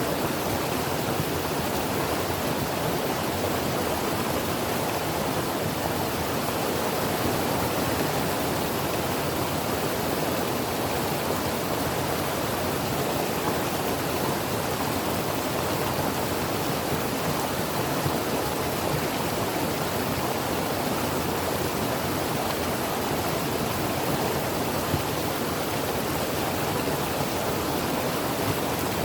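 Mountain creek water flowing and burbling in a steady, unbroken rush.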